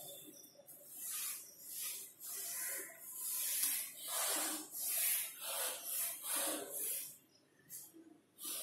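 Chalk scraping across a blackboard in a run of short, scratchy strokes, about two a second, as lines are drawn. The strokes thin out near the end.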